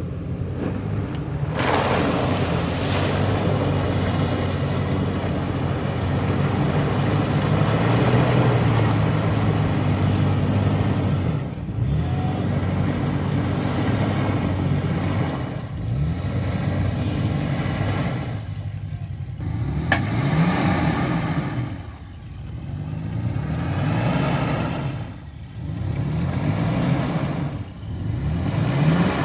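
Toyota FJ Cruiser's V6 engine under hard throttle, its tires spinning and churning through deep mud. In the second half it revs up in short pushes about every two seconds, easing off between them, as the truck tries to work itself out of the rut.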